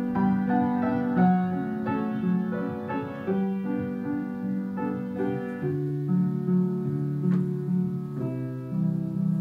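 Background piano music playing a slow theme, single notes struck about twice a second over held lower notes.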